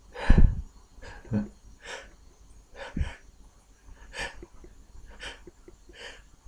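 A man with a head cold sniffing and breathing hard through a blocked nose, in a string of short noisy breaths about one every half second to second as a sneeze builds. The loudest is a sharp breath just after the start.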